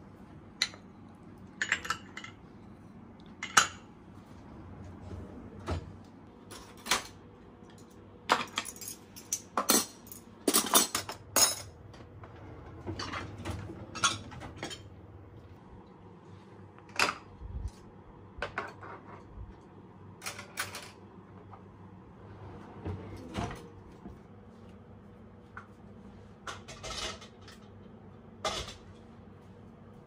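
Ceramic cups, glassware and kitchen utensils clinking and clattering as they are handled in kitchen drawers. The sharp clinks are scattered, with a dense flurry about ten seconds in.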